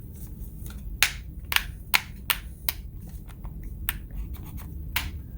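Hands handling hard plastic and metal parts: a run of about eight sharp, irregularly spaced clicks with light scraping between them.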